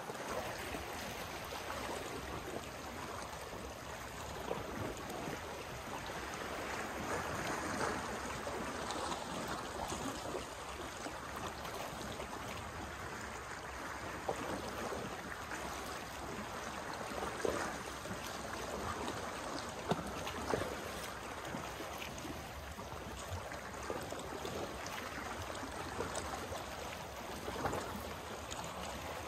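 Small sea waves lapping and washing against shoreline rocks, a steady wash with a few brief louder moments.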